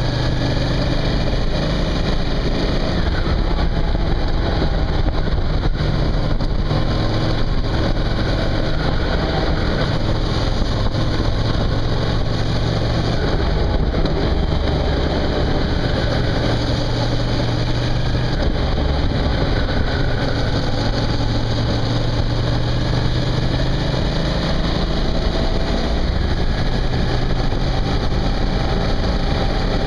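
Suzuki V-Strom motorcycle engine running under way, a steady hum whose pitch shifts a little now and then as the speed changes, over a continuous rush of wind and road noise.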